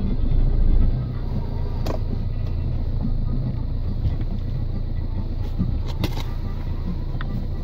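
A vehicle engine idling with a steady low rumble, swelling briefly in the first second, with a few faint clicks.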